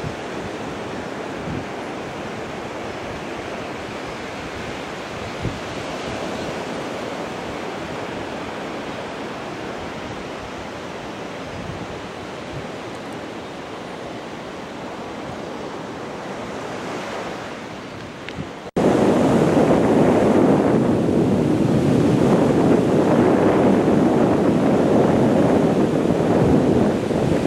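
Surf washing in on a sandy beach with wind on the microphone. About nineteen seconds in it cuts suddenly to much louder waves breaking and churning among pier pilings, swelling and ebbing.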